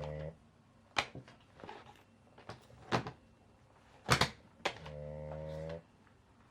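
Several sharp clicks and knocks, with a steady electric hum that stops just after the start and comes back for about a second near the end.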